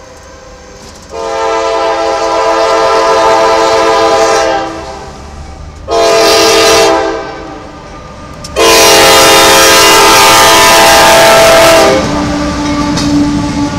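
CSX freight locomotive sounding its horn for a grade crossing: a long blast, a short one, then another long blast, as the train comes up to and passes the crossing. A lower, quieter steady tone and the noise of the passing train follow.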